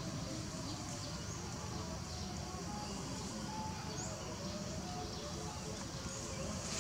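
Outdoor ambience: a steady background hiss and rumble with faint, scattered short chirps, like distant birds.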